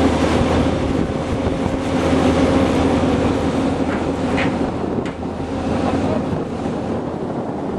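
Heavy construction machinery engine running steadily with a constant droning hum, mixed with wind buffeting the microphone and surf washing on the shore.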